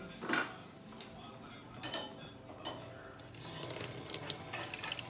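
A few clinks of kitchen dishes and utensils, then, from about three and a half seconds in, a kitchen tap running steadily into a plastic measuring cup over a stainless steel sink.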